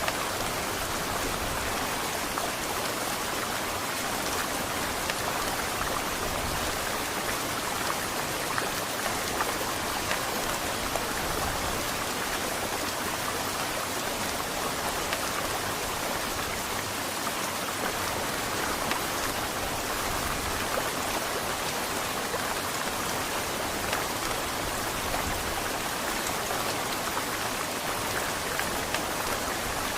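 Heavy rain falling steadily, a dense, even patter of drops with no change in strength.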